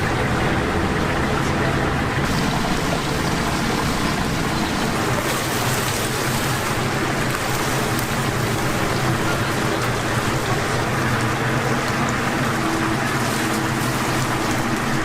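Chicken deep-frying in a vat of hot oil: a steady, even crackling sizzle with no let-up.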